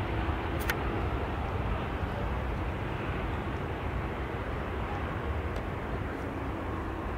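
Airliner engines, a steady rush with a low hum that slowly fades, and one sharp click just under a second in.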